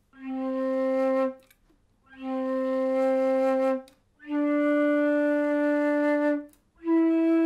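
Transverse (side-blown) flute playing four long held notes in its first octave, blown with a warm, relaxed breath. The first two are on the same low pitch, then each of the next two steps up, and the last note carries on past the end.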